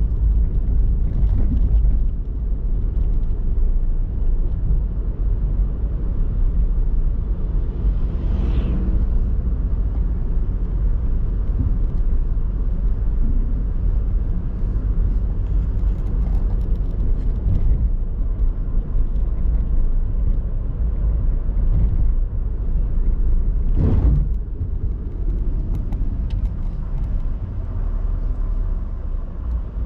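A car driving on a paved road: steady low road and engine rumble. Two brief louder noises stand out, about eight seconds in and again near 24 seconds.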